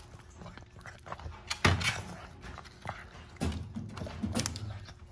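Boston Terrier gnawing on a large dried pig foot chew, teeth crunching and clicking on it in irregular bites, the loudest crunch about a second and a half in.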